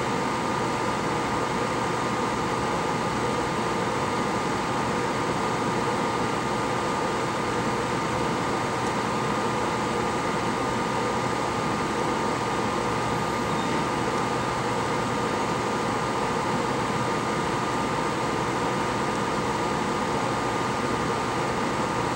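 A small electric fan running: a steady whir with a thin, steady whine over it.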